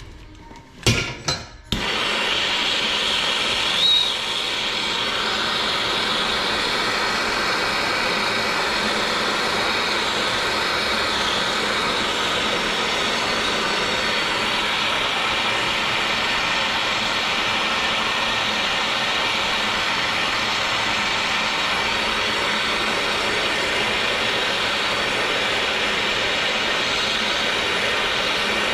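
A couple of sharp clicks, then a loud, steady hiss from a running machine starts about two seconds in and holds unchanged.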